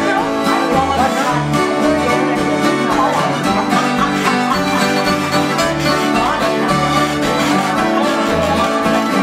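Acoustic string band playing an instrumental country tune: several acoustic guitars strumming and picking, with a fiddle carrying the melody.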